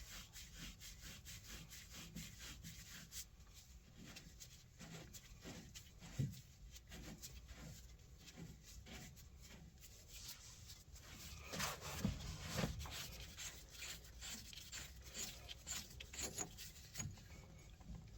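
Wrenches working on a hydraulic hose fitting: faint scraping and many small clicks, with a few louder metal knocks about six seconds in and twice around twelve seconds in.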